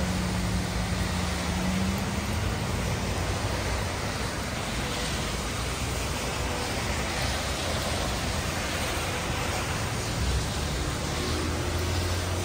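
Heavy rain falling steadily on wet pavement, a continuous even hiss. A car's engine hum rises under it about ten seconds in.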